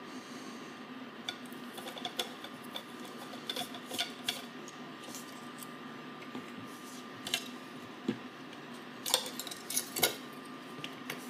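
Small hand screwdriver backing out a screw from a circuit board, then light metallic clicks and clinks as the driver, bit and small parts are handled and set down, with a cluster of louder clicks about nine to ten seconds in. A faint steady hum runs underneath.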